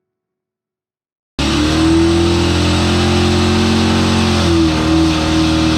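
Engine running at a steady speed, cutting in abruptly about a second and a half in and shifting slightly in pitch near the end.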